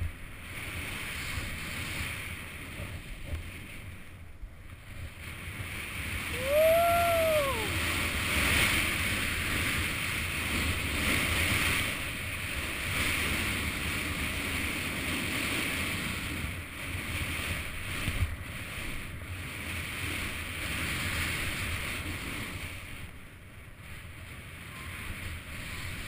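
Skis running through powder snow, with wind rushing over the camera's microphone: a steady noisy rush that grows louder from about six seconds in and softens near the end. About seven seconds in, a short tone rises and falls once.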